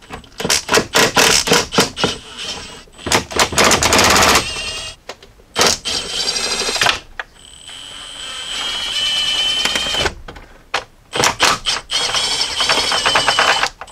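Ratchet turning a 10 mm socket on a swivel, clicking rapidly in repeated bursts as it backs out the 10 mm nuts and bolts that hold the upper dashboard. Two longer stretches in the second half carry a steady high whine under the clicking.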